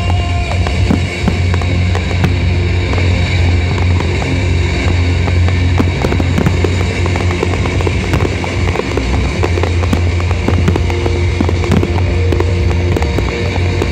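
Fireworks display: many shells bursting and crackling in quick, overlapping succession over music.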